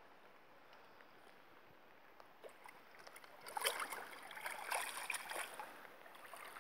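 Water splashing and sloshing as a large common carp is released from the angler's hands, its tail kicking. The first few seconds are quiet, and the splashing comes in several bursts from about three and a half seconds in.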